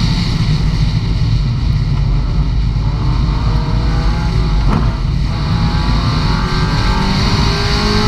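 Super 1600 rallycross car's 1.6-litre engine running hard, heard from inside the car over loud road noise, with the revs climbing through the second half. There is one sharp click about halfway through.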